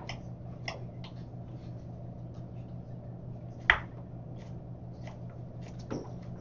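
Chef's knife dicing a yam on a wooden cutting board: irregular light taps, with one louder knock about four seconds in, over a steady low hum.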